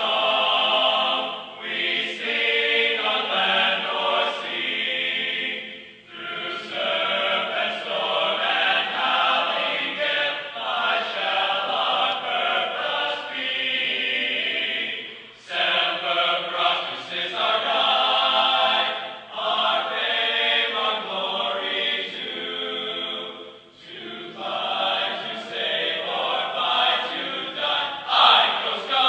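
Choral music: a choir singing long, held phrases, with short breaks about six, fifteen and twenty-four seconds in.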